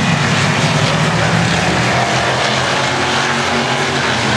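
A field of rookie stock cars racing together, many engines blending into one loud, steady drone.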